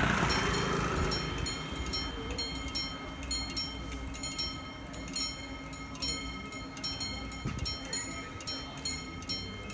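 Italian level-crossing warning bell ringing in fast, even strokes as the barriers come down, signalling that a train is approaching.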